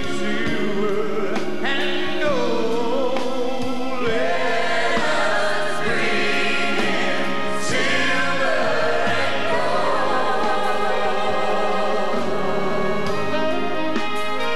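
A group of singers with microphones singing a Christmas song in harmony, with a live band accompanying.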